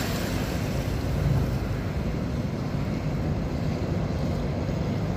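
Steady wind buffeting the microphone over choppy water, with the low rumble of a motor barge passing close by.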